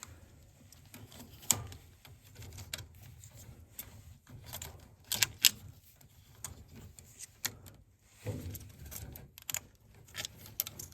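Scattered small clicks and rattles of furnace wiring connectors being handled and pushed onto a control board, with a few sharper snaps, the loudest about five seconds in.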